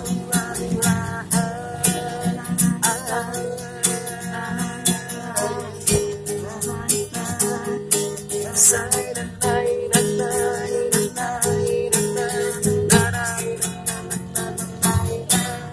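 Acoustic guitar strummed in a steady rhythm, playing an instrumental passage after the sung verse ends.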